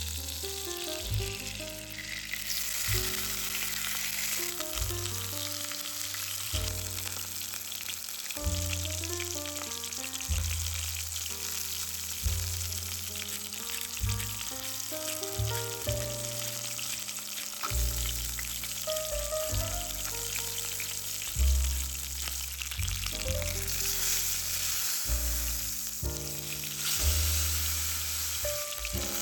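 Food sizzling as it fries in oil in a skillet, a steady hiss, over background music with a bass line.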